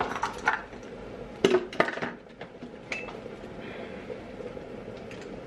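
Clinks and knocks of a spatula and lid against a Thermomix TM31's stainless-steel mixing bowl: a few sharp strikes in the first two seconds, then one clink about three seconds in that rings briefly.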